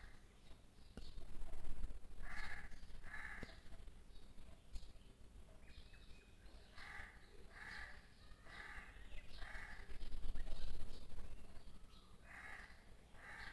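A bird calling harshly and repeatedly: two short calls, then a run of four, then two more near the end. Faint knocks and handling noise lie underneath.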